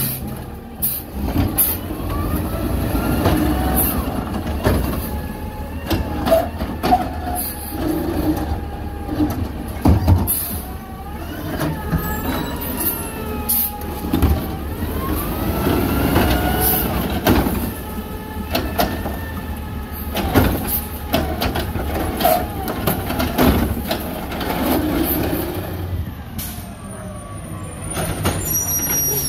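Automated side-loader garbage truck working curbside carts. Its diesel engine runs steadily under a hydraulic whine that rises and falls in pitch as the arm lifts and lowers, with sharp bangs as carts are dumped and air-brake hisses. Near the end another garbage truck's engine runs as it pulls up to the carts.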